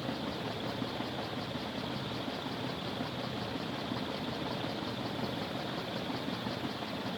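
56-inch Envirofan Silverline ceiling fan running at full speed: a steady rush of moving air.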